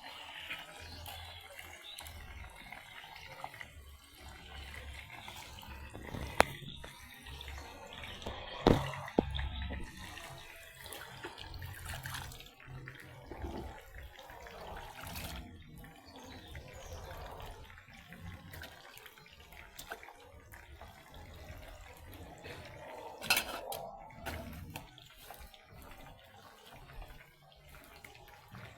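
Water splashing and running, as at a sink or basin, with a few sharp knocks scattered through it.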